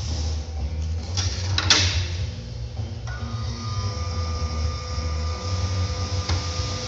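Metal scissor linkage of an extendible barbecue frame being pushed out by hand, its arms and bolted pivots clicking and rubbing as it extends. A few sharp metal clicks come about a second and a half in, over a steady low hum.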